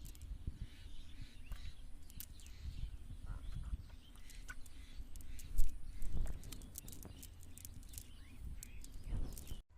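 Small birds chirping amid scattered sharp clicks and low rumbling bumps, with a loud bump about five and a half seconds in and another just after six seconds.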